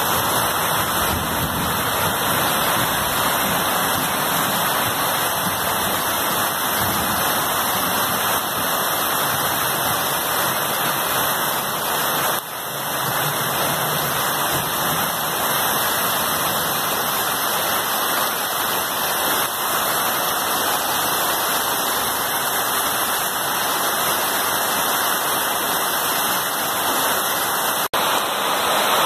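Heavy rain falling steadily on a corrugated metal sheet roof: a dense, even rush of noise.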